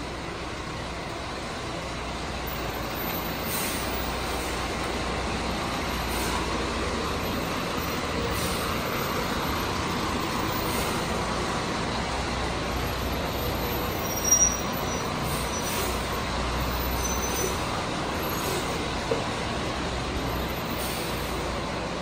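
Rear-loader garbage truck running steadily as it creeps along the street, engine and road noise together. A brief high squeak comes about 14 seconds in.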